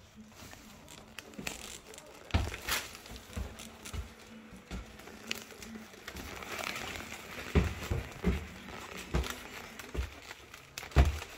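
Footsteps on a staircase at an uneven pace, heavier knocks in the second half, with rustling handling noise on the phone's microphone.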